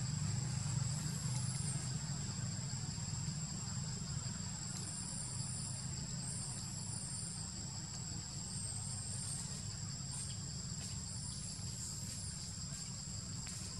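Steady high-pitched drone of insects, with wavering high chirps coming and going over it and a low steady rumble underneath.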